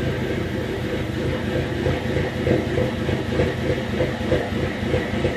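2005 Dodge SRT-4's turbocharged 2.4-litre four-cylinder idling roughly, its loudness pulsing unevenly. The rough idle comes from a lean mixture, which the owner traced to a failing upstream oxygen sensor.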